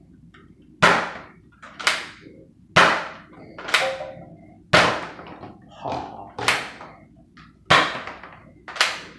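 Nerf blaster being fired repeatedly at about one shot a second, each shot a sharp snap that quickly dies away, nine in all.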